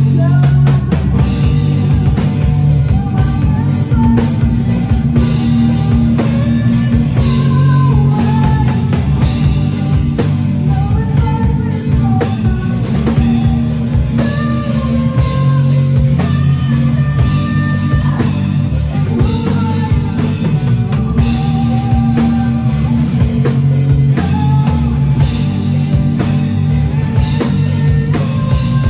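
A rock band playing a song live, with drum kit, guitar and singing over a strong bass line.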